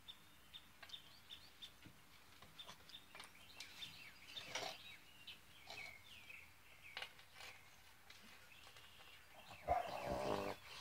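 Birds chirping outdoors: one repeats a short high chirp about three times a second, with scattered calls around it. Near the end comes a louder pitched sound lasting about a second.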